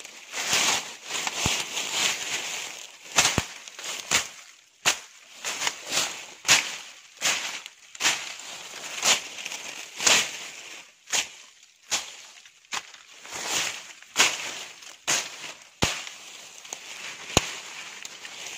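Dry leaf litter and twigs crackling and rustling close by in irregular swells, with many sharp snaps and clicks.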